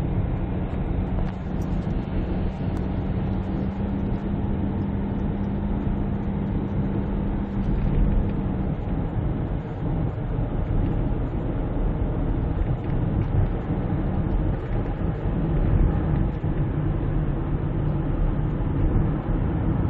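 Steady road and engine drone inside the cabin of a Kia Grand Carnival minivan cruising on a highway. A low steady hum stops about nine seconds in, and lower hum lines come in later. The cabin is quiet enough that the riders compare it to a passenger car's.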